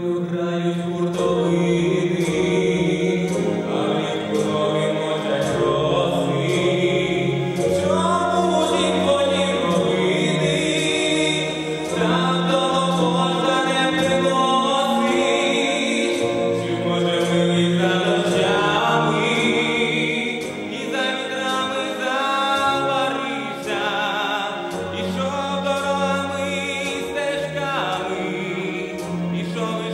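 A young male vocalist singing a song into a handheld microphone over an amplified backing track with a steady beat.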